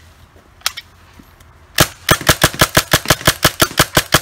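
Tacamo Bolt G36 magazine-fed paintball gun firing a fast string of shots, about seven a second, starting about two seconds in. A single click comes shortly before.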